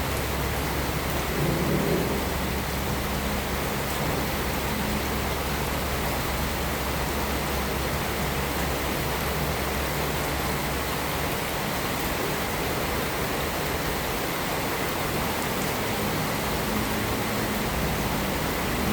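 Steady heavy rain, a dense even hiss, under a low rumble of distant thunder that fades out about halfway through.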